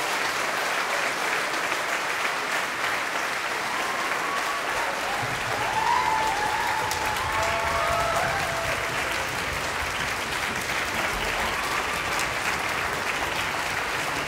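Large concert-hall audience applauding steadily at the end of a choral and orchestral performance, with a few short cheers rising over the clapping.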